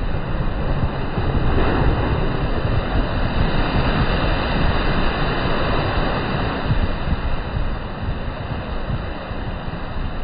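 Sea surf breaking on a sandy shore and its foam washing up the beach. The noise swells as a wave breaks between about two and seven seconds in, then eases. Wind rumbles on the microphone throughout.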